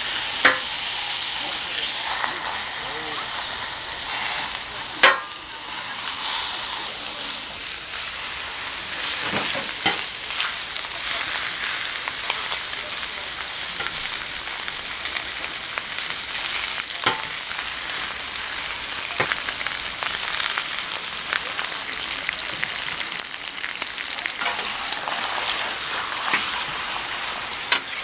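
Pork offal sizzling and frying on a large iron griddle, a steady hiss with a few sharp clicks along the way.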